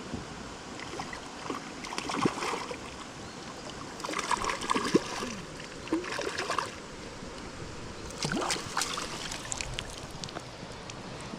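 Flowing river water with irregular splashing and sloshing that comes in three bursts: about two seconds in, for a couple of seconds from about four seconds, and again after about eight seconds.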